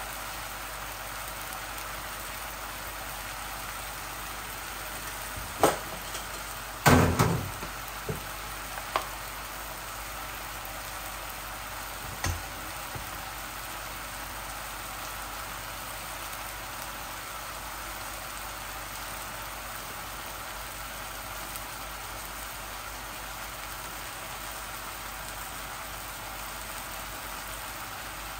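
Chicken pieces frying in a non-stick pan, a steady sizzle as the water coming out of the freshly washed chicken cooks off. A few sharp knocks cut in about six and seven seconds in, and once more around twelve seconds.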